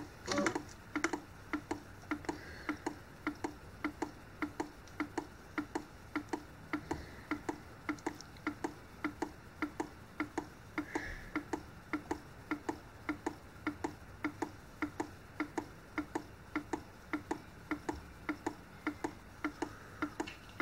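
OI Analytical 9310 online cyanide analyser running mid-cycle, with a steady, even ticking of about three clicks a second.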